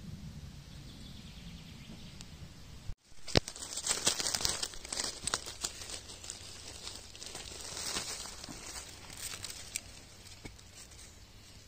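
Dry fallen leaves and twigs rustling and crackling under a hand working through the forest floor litter, with a sharp snap about three seconds in and crinkling that goes on for several seconds before fading. A low rumble of handling noise comes before it and cuts off suddenly.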